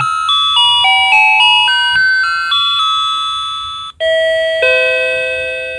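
RFL Click electronic doorbell chime playing a tune of clear electronic notes, about three or four a second, that slowly fades. Just before four seconds in, the tune cuts off and a fresh two-note ding-dong starts and rings away. The chime goes off as soon as the unit is powered up with its two AA batteries.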